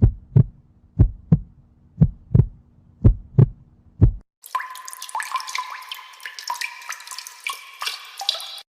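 Heartbeat sound effect: paired low thumps about once a second over a faint hum, four beats and a single one. Then, after a short gap, about four seconds of a busy watery trickle with many small pings and clicks.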